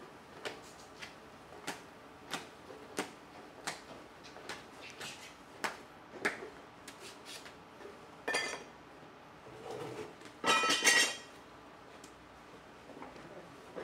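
Potters working clay and handling hard tools: light sharp taps at a steady pace of about three every two seconds. A short ringing clink follows about eight seconds in, then a louder ringing clatter of hard ware a couple of seconds later.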